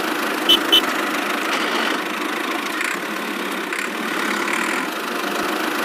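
Miniature toy tractor's engine-like running sound, steady throughout. Two short high beeps come about half a second in.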